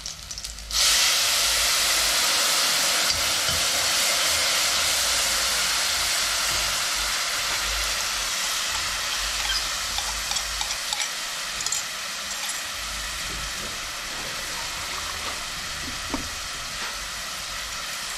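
Curry powder mixed with water hitting hot oil with garlic and onion in a pot: a loud sizzle that starts suddenly about a second in and slowly dies down, with a few faint knocks later on. This is the first stage of 'burning' the curry, cooking it down in the oil.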